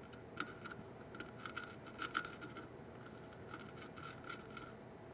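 Faint, scattered crackles and small scratchy ticks as a soldering iron presses fluxed stranded copper wire onto circuit-board solder pads, the copper wicking up the old solder.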